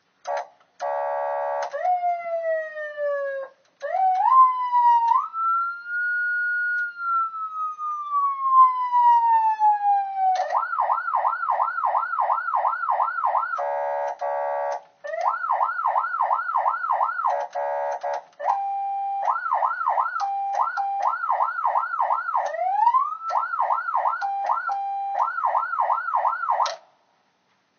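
HornBlasters 100-watt PA siren run through its tones: a buzzing horn blast, a siren wail rising and then falling slowly, a fast yelp of about three sweeps a second, short horn blasts, and steady tones broken by yelps. It is loud and cuts off near the end.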